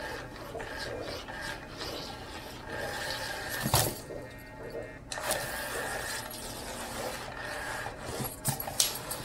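Motorised cat toy whirring in spells under its round fabric cover, the cloth rubbing and rasping as the wand sweeps beneath and a kitten paws and scrabbles at it. A sharp thump about three and a half seconds in, and a couple of clicks near the end.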